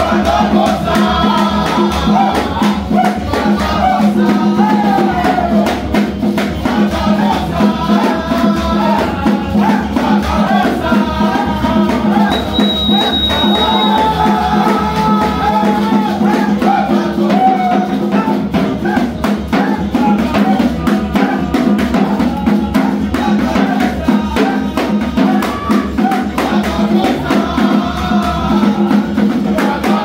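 Live gospel praise music: group singing over acoustic guitar and keyboard, with a steady drum beat.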